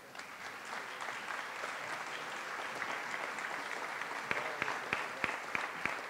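Audience applauding: many hands clapping together, with a few sharper single claps standing out in the second half.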